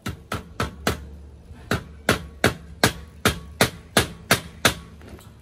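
Hammer tapping a push-on wheel cap onto the axle of a Weber kettle grill, sharp ringing blows: four quick strikes, a short pause, then about nine more at a steady pace of roughly three a second.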